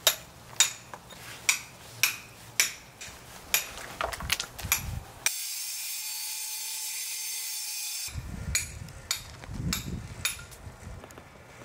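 Sharp metallic taps about one or two a second, then for about three seconds the steady hiss of an angle grinder cutting marble, then a hand hammer striking a steel chisel into marble about twice a second.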